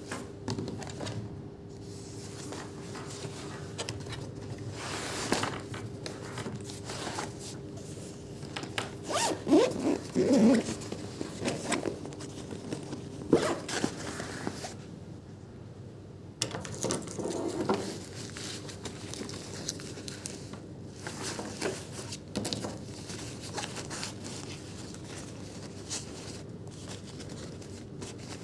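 Irregular rustling, scraping and clicking of things being handled, with the busiest stretch about ten seconds in, over a faint steady hum.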